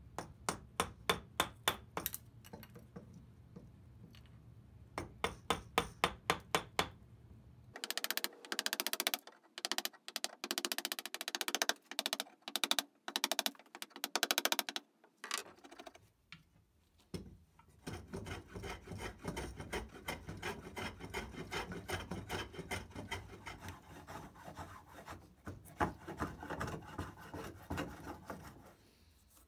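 A wooden mallet striking a chisel into an old wooden mallet head: two runs of sharp knocks, then a faster run of strikes. From about halfway in, steady scraping strokes of a hand tool rasping the wooden head take over.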